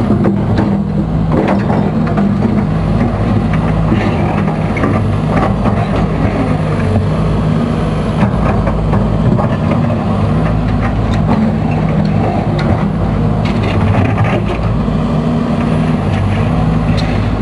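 Case CX210B excavator's diesel engine running steadily while the machine is worked on test, with a few sharp clicks and knocks over it. The main hydraulic pump, just stripped and serviced, runs without its snoring noise.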